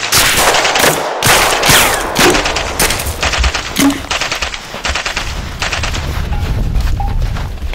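Heavy gunfire: machine-gun bursts and rifle shots in quick succession, the loudest shots in the first two seconds, followed by a faster, denser rattle of fire.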